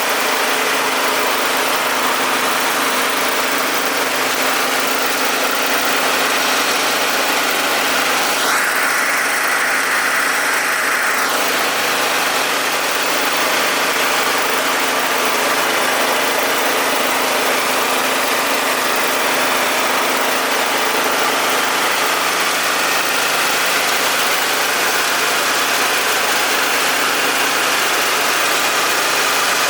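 Mini rice milling machine running steadily, a continuous mechanical whir and hiss. About a third of the way in, a louder, higher hiss rises for about three seconds, then drops back.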